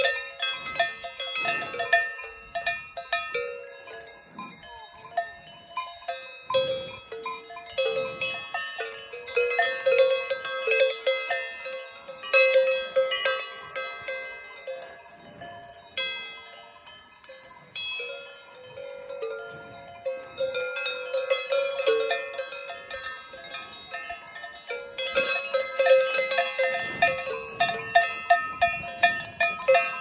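Several cowbells of different pitches clanking irregularly on the necks of cows, their strokes overlapping and ringing on. The clanging is busiest in the last few seconds.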